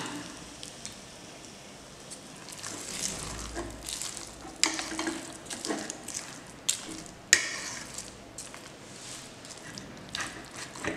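A spoon stirring thick, coarse carrot chutney in a bowl: soft wet mixing sounds with scattered sharp clinks and scrapes of the spoon against the bowl, a few of them louder than the rest.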